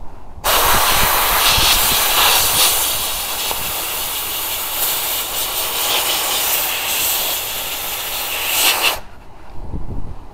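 A Central Machinery 20 lb pressurized abrasive blaster's nozzle spraying baking soda with compressed air: a loud, steady hiss that starts suddenly about half a second in and cuts off abruptly about nine seconds in.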